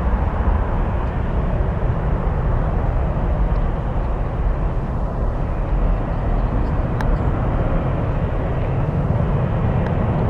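Jet engines of an Airbus A330-200 making a steady, deep rumble as the airliner climbs away after take-off.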